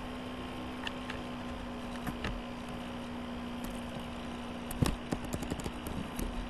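Room noise: a steady low hum under a faint hiss, with a few light clicks early on and a quicker run of small clicks and taps in the second half.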